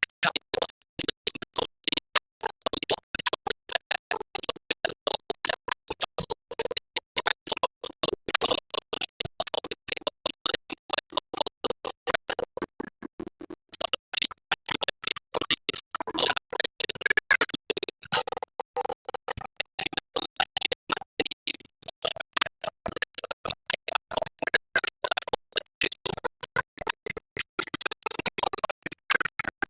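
Music of choppy, stuttering electronic sound, cut on and off many times a second like record scratching.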